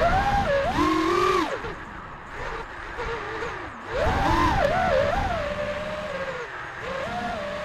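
The brushless motors and propellers of an FPV quadcopter (Xing 2450 kV motors on an Armattan Marmotte) whine, their pitch swooping up and down with the throttle over a rush of wind. The sound surges loudest at the start and again about four seconds in.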